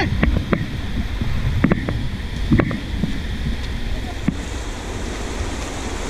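Whitewater rapids rushing around an inflatable raft, with wind buffeting the action-camera microphone. A few short, sharp paddle strokes hit the water in the first few seconds.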